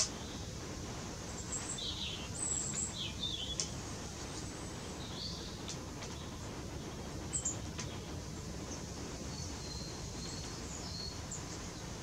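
Small songbirds giving short, high chirps and calls, scattered in several clusters, over a steady outdoor hiss. A sharp click at the very start.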